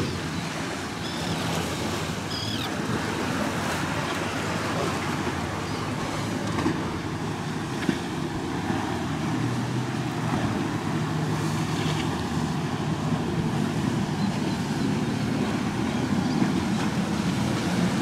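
Center console motorboat engines humming out on the inlet, the hum clearer in the second half, over steady wind noise on the microphone and the wash of waves.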